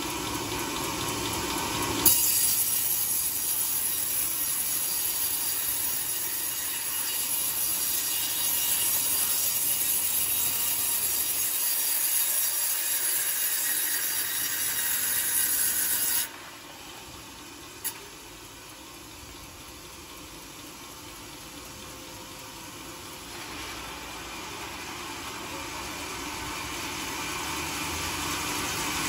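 Band sawmill blade cutting through a coconut-wood log, a steady high-pitched hiss and rasp that stops abruptly about halfway through. Then the saw runs quieter, with a single sharp knock, and the cutting noise builds up again near the end.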